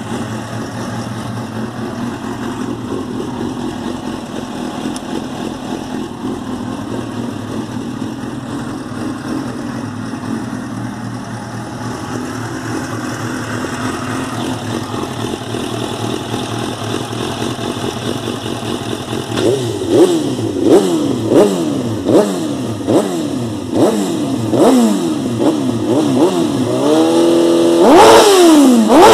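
2005 Suzuki GSX-R 750 K5's inline-four engine idling steadily, then blipped about ten times in quick succession from about two-thirds of the way through, ending with a longer, higher rev.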